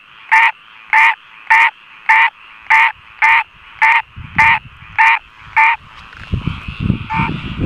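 Green treefrog calling: about ten short, evenly spaced nasal calls, a little under two a second, that stop near 6 s. A low rumble of handling noise on the microphone builds from about 4 s and is loudest at the end.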